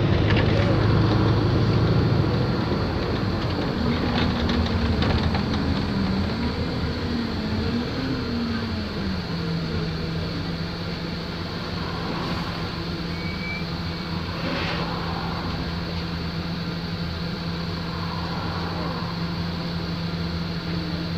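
Wright StreetLite single-deck bus running: its engine note rises and falls for the first eight or nine seconds, then settles to one steady low hum from about nine seconds in.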